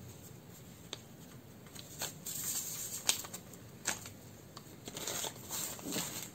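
Rustling and crinkling of paper sachets and a plastic glove as vanilla sugar is shaken out into a glass bowl, with a few light clicks.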